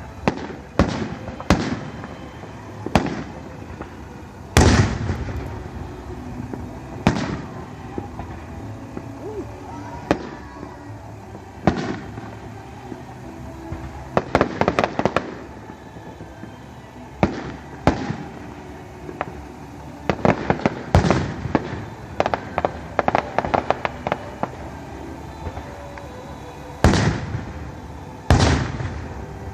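Fireworks display: aerial shells bursting with loud, sharp bangs every second or two. Several rapid crackling runs come in the middle, and the loudest bangs come about four seconds in and twice near the end.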